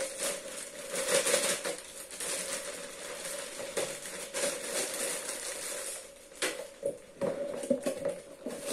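Clear plastic bag crinkling as a handful of plastic game sticks is pushed into it. In the last few seconds come a few knocks as a cardboard game box is picked up and tipped over.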